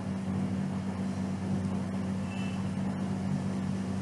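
Steady low background hum, unchanging throughout, with a faint click about three seconds in.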